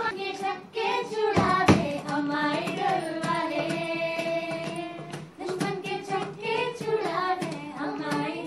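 A group of children singing a melody together in held notes, with a sharp thump about one and a half seconds in.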